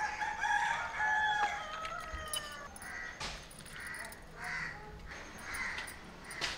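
A rooster crowing once, a long stepped call of about two and a half seconds, followed by shorter bird calls repeating about once a second.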